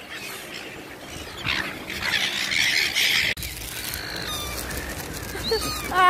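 Seagulls calling around a hand-feeding: a rushing noise for the first three seconds stops abruptly, then a few high gull calls come near the end.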